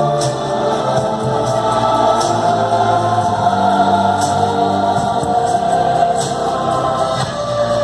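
A choir singing long held chords with musical accompaniment, with a faint regular tick of percussion.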